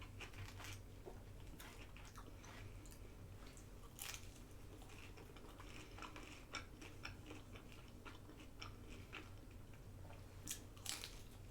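A person chewing and biting food close to the microphone, faint, with scattered small crunches and mouth clicks; a few louder clicks about four seconds in and near the end.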